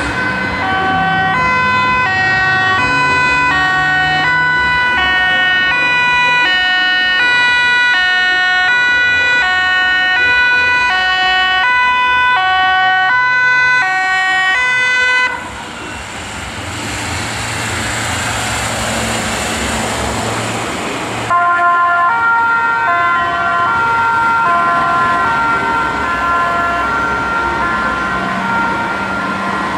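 German two-tone 'Martinshorn' siren on an emergency doctor's car (NEF), switching between a high and a low tone about every two-thirds of a second. About halfway through it breaks off into several seconds of road noise from the passing vehicle. Then a two-tone siren suddenly starts again, fainter.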